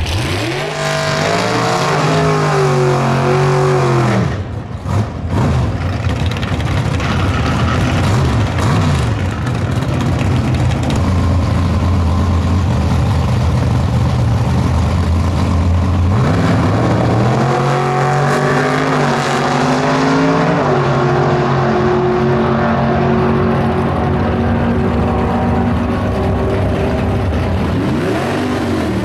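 Drag-racing cars' engines: a hard acceleration with rising pitch, a brief drop in sound about four seconds in, then a steady deep engine note at the line before another launch about seventeen seconds in, pitch climbing in pulls broken by gear changes.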